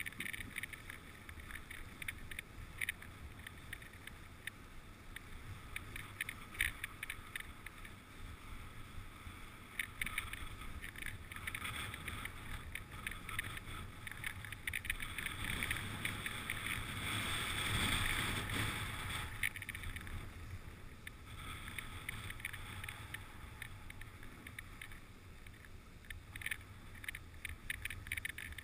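Dog sled runners sliding over packed snow: a steady rushing hiss with frequent small clicks and rattles, swelling louder for a few seconds a little past halfway.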